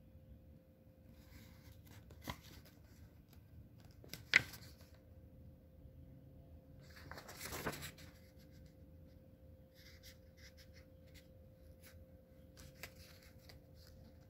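Paper pages of a service manual being handled and turned: a sharp tap about two seconds in and a louder one about four seconds in, then a papery swish of a page turning a little before halfway, with faint rustles and small ticks afterwards.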